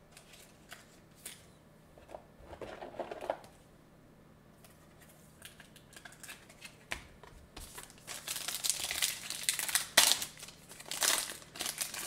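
Foil trading-card pack wrapper crinkling and tearing as it is opened by hand, loud and sharp in the second half. Before that, only faint clicks and taps of cards being handled.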